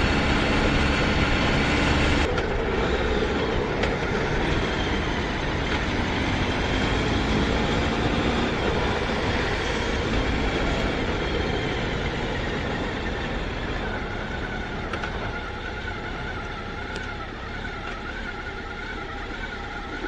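Motorcycle engine running under way, with a rush of air noise and a rising and falling engine note, slowly getting quieter.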